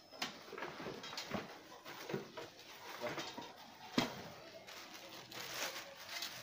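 Hands rummaging in a cardboard box and rustling the plastic wrap around packed drums: irregular crinkling and scraping with a few light knocks, the sharpest about four seconds in.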